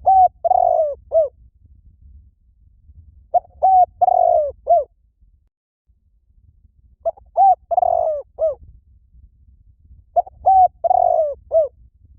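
Spotted dove cooing: four phrases of several short coos each, about three and a half seconds apart, the repeated call used to lure doves.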